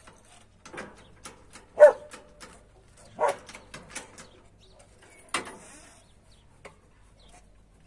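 A dog barking twice, short sharp barks, with scattered light clicks and a sharp knock about five seconds in.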